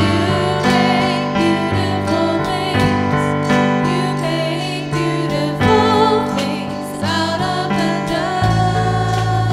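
Christian worship music: a sung melody with wavering, vibrato notes over sustained keyboard chords and bass notes that change every second or two.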